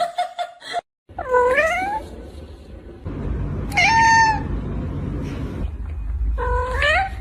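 A cat meowing three times, each call about a second long. The first and last calls rise in pitch, and the middle one is higher and steadier. A low rumbling noise runs underneath.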